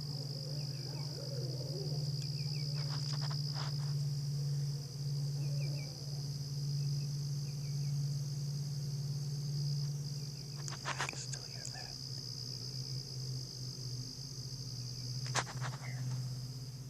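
A steady low buzzing hum, with a continuous high-pitched insect-like trill above it and a few short clicks.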